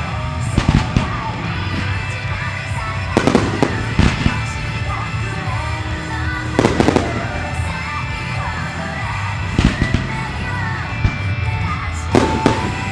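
Firework shells bursting in the sky, with sharp bangs coming in clusters about every three seconds, over continuous music.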